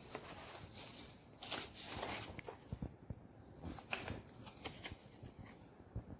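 Irregular footsteps crunching and scraping on debris-strewn floor, with scattered sharp crackles.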